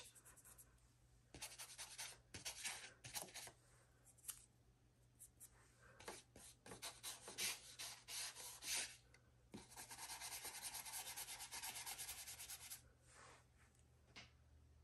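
Ink blending brush rubbed and dabbed on a colouring-book page, laying tan Distress Ink along the edge: faint scattered short strokes, then about three seconds of quick, steady scrubbing starting some ten seconds in.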